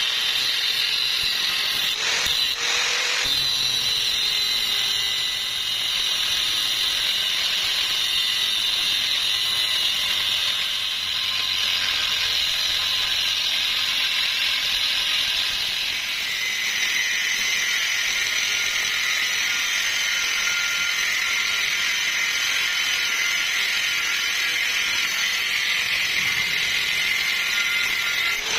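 Angle grinder with a thin cut-off disc cutting through thick steel plate: a steady, high-pitched whine of the disc under load. Partway through, a lower steady tone comes in and holds.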